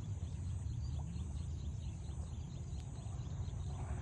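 Open-air ambience: a steady low rumble and a steady high-pitched drone, with faint quick chirping calls.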